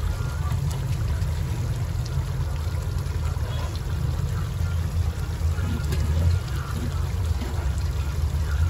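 Stovetop cooking: chicken patties frying on a cast-iron griddle beside a pan of simmering chicken curry, with a low steady rumble and faint crackling.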